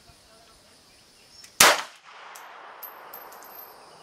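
A single semi-automatic pistol shot about one and a half seconds in, sharp and loud, followed by a lingering hiss and a few faint high clinks.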